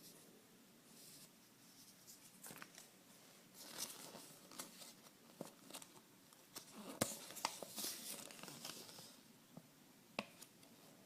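Toy packaging being handled and torn open: irregular crinkling and tearing with scattered small clicks, busiest a little after the middle.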